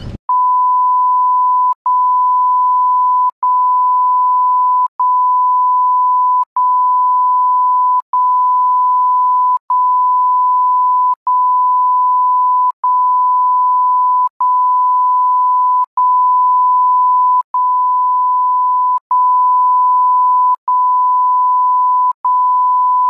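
A steady, loud, pure electronic beep tone that holds one pitch, broken by a short gap about every one and a half seconds, in place of any street sound.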